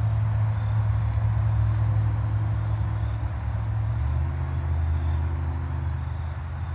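A vehicle engine running steadily at low revs; its note drops and changes about four seconds in.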